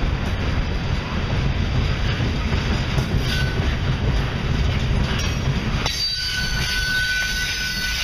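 Norfolk Southern freight cars rolling past close by, their wheels making a steady rumble on the rails. About three-quarters of the way through, a steady high-pitched wheel squeal sets in and holds.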